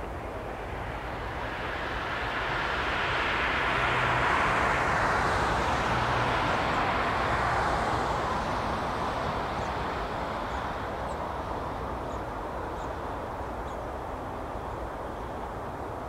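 Airbus A380 jet engines heard from afar as the airliner rolls out along the runway after landing. The rushing roar swells over a few seconds, slides lower in pitch, then slowly fades.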